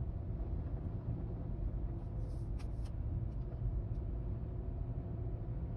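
Steady low rumble of a moving car heard from inside the cabin: engine and road noise, with a few faint clicks about two to three seconds in.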